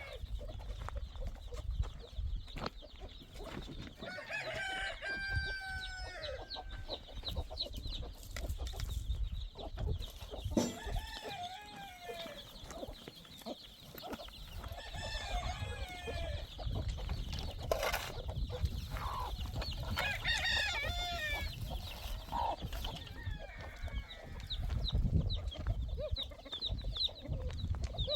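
Chickens clucking, with a rooster crowing several times, over a low rumble.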